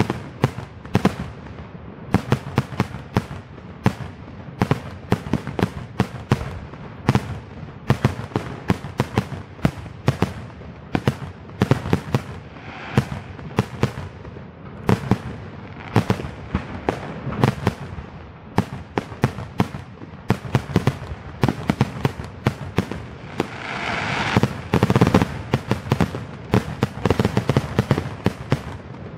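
Aerial fireworks shells bursting in quick succession: sharp bangs a few times a second, with a louder rush of noise lasting about a second, around 24 seconds in.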